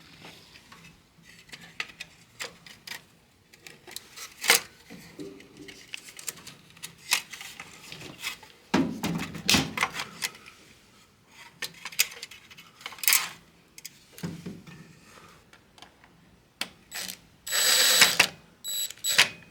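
Irregular clicks, taps and short scrapes of small plastic and metal appliance parts being handled, with a louder scraping rustle near the end.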